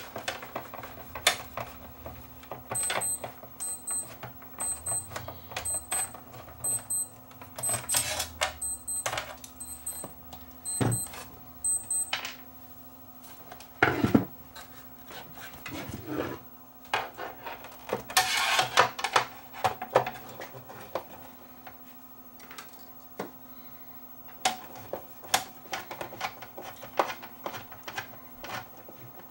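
Clicks, knocks and scrapes of a screwdriver and metal parts as the screws holding a CRT monitor's chassis are undone and the chassis is worked loose. A steady low hum runs underneath, and a run of short, evenly spaced high-pitched beeps comes from about 3 to 12 seconds in.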